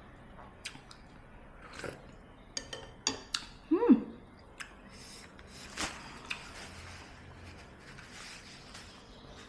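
Spoon clicking and clinking against a soup bowl while eating, in a handful of separate sharp taps. About four seconds in comes a short pitched sound sliding down in pitch, the loudest moment.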